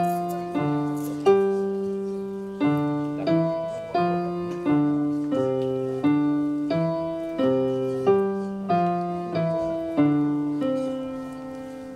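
Solo grand piano played in a steady run of struck chords, a new one about every second. The last chord, near the end, is held and left to ring away.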